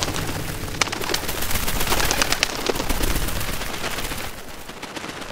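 A flock of birds' wings flapping as they take off together, a flurry of rapid wingbeats that thins out about four seconds in.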